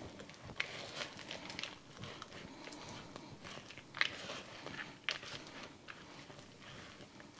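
A stiff cream cheese mixture with shredded cheddar, bacon bits and green onion being stirred and scraped in a bowl: irregular soft squishing and scraping, with sharper clicks about four and five seconds in.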